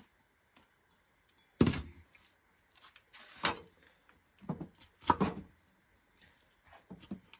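A few scattered knocks and clatters of things being handled, the sharpest about a second and a half in, with smaller ones through the rest.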